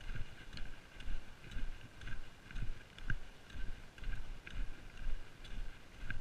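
Footsteps of a hiker walking with trekking poles on a dirt forest track: a steady rhythm of about two footfalls a second, with the pole tips clicking on the ground.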